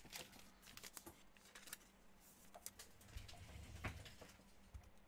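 Near silence, with a few faint, scattered clicks and taps from trading cards being handled.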